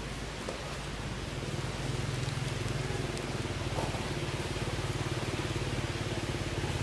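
A motor engine running steadily out of view, its low hum growing a little louder about two seconds in, over a constant hiss.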